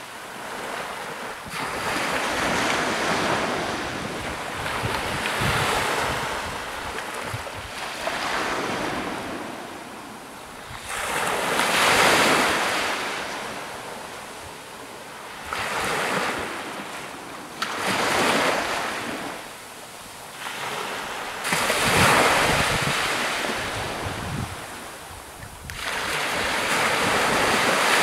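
Small waves breaking and washing up a sandy beach, each surge swelling and fading every few seconds, the biggest about twelve and twenty-two seconds in.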